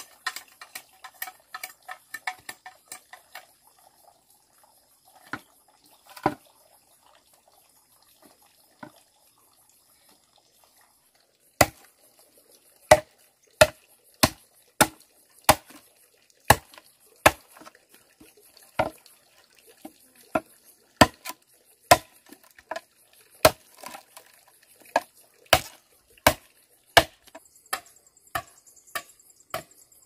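Wood being chopped: a few light knocks in the first seconds, then from about twelve seconds in a long run of sharp, loud chopping blows, roughly one a second and sometimes quicker.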